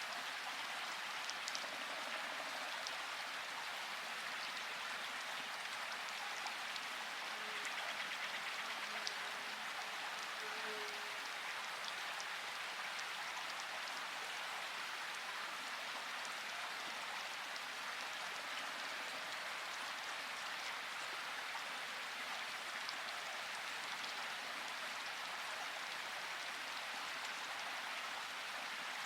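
Steady water noise, an even hiss like rain or a flowing stream, with scattered small drip-like ticks.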